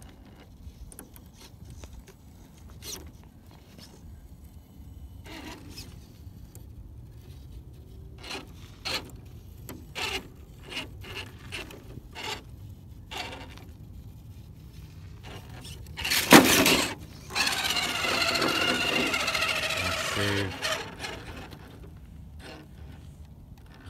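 RC rock crawler climbing a boulder: scattered small clicks and scrapes of tyres on rock over a faint low rumble. About sixteen seconds in comes a loud rough burst, then about three seconds of a wavering high squeal.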